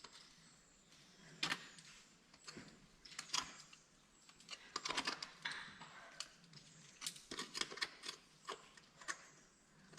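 Steel drytooling ice-axe picks and crampon points clinking and scraping on rock as a climber moves up a steep route. The clicks come at irregular intervals and bunch together about halfway through and again near the end.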